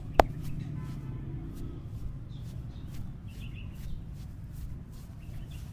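Two sharp cracks a fifth of a second apart, typical of the slaps and cracks of a vigorous head and neck massage, then a steady low background rumble with a few faint bird chirps.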